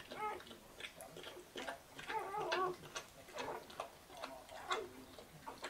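Newborn Dutch Shepherd puppies, only hours old, squeaking and whimpering in short wavering calls again and again while they nurse, with small clicking suckling sounds between the calls.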